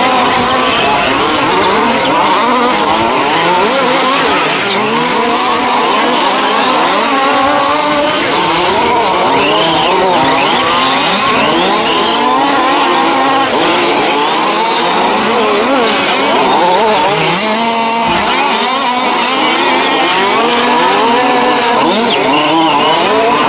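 Several 1:5-scale RC short course trucks racing together, their small two-stroke petrol engines revving up and down, the overlapping engine pitches rising and falling constantly.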